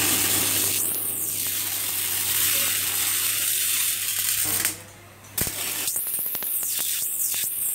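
Robotic arc welding on Yaskawa welding robots: a steady, harsh crackle of the welding arc and spatter. The arc cuts out for about half a second a little past the middle, then strikes again with a click and carries on.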